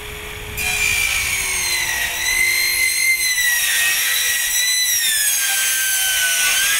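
Sliding mitre saw with an Irwin blade cutting through another maker's hardened-steel circular saw blade. The motor whine is joined about half a second in by a loud, high metal-on-metal screech, its pitches sagging and rising as the blade bites.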